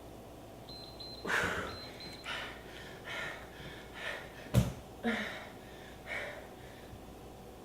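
A person breathing hard during exercise, with sharp exhales about once a second and a single thump about four and a half seconds in.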